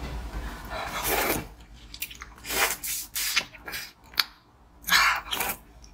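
Biting and chewing on a large molded rabbit-shaped treat: about five separate short, sharp bites spread a second or so apart.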